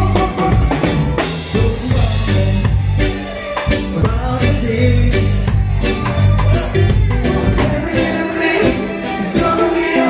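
Live reggae band playing loudly: drum kit, electric guitar and bass, with a male lead singer's voice over the beat.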